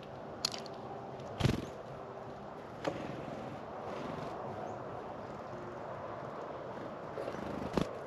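Four sharp taps and knocks from small birds such as tufted titmice and chickadees landing on and pecking at a bird feeder, the loudest about a second and a half in, over a steady background hiss.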